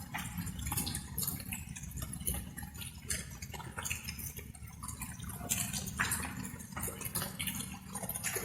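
Light rain: water drops falling and dripping irregularly, many small ticks at an uneven pace, over a steady low rumble.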